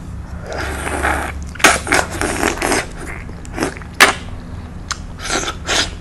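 Peeling and biting into tropical fruit with fingers and teeth: a rustling tear of rind about half a second in, then a run of sharp crackling clicks and crunches, the loudest about four seconds in.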